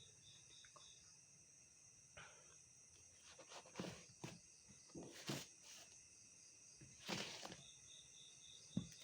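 Insects chirping steadily in the background, with a fast pulsing chirp near the start and again near the end. Several short rustles and knocks come in the middle.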